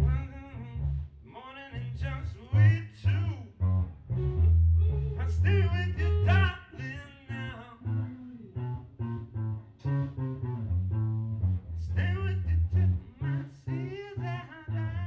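Band playing blues-rock live: electric guitar lead with bent notes over a heavy bass guitar line.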